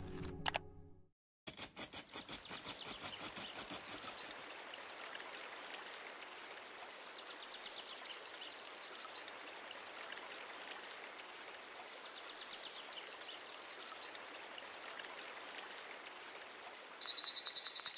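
Background music fades out about a second in and, after a brief silence, gives way to quiet rural outdoor ambience: a steady hiss with fine clicking and short runs of rapid, high chirps every few seconds, and a steadier high chirping near the end.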